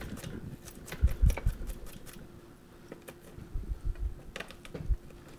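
Chef's knife knocking and clicking on a cutting board in an irregular run of taps, the blade working crushed garlic.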